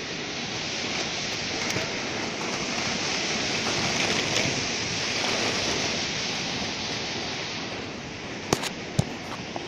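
Steady rushing of wind, swelling slightly midway, with two sharp clicks near the end.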